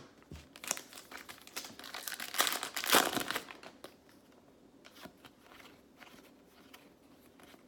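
A trading card pack wrapper being torn open and crinkled for a few seconds, loudest about three seconds in, followed by faint light ticks of cards being handled.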